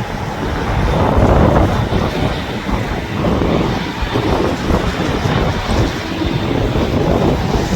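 Wind buffeting the microphone in irregular gusts, over the steady rumble of a landing aircraft's engines.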